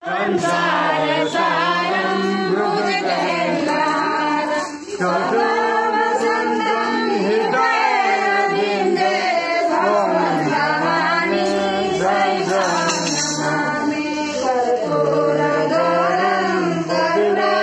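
A group of women singing a devotional song together, the kind sung while the aarti lamp is waved.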